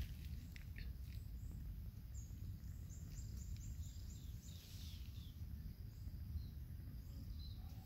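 Outdoor ambience: a steady low rumble with faint, quick, high chirps of small birds, clustered about two to four seconds in.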